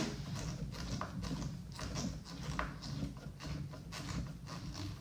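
Irregular small clicks and knocks of plastic RC car parts and hand tools being handled during assembly, over a low steady hum.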